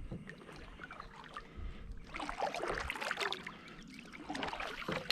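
Water splashing and sloshing in uneven bouts, with small clicking splashes; it picks up about two seconds in and again near the end.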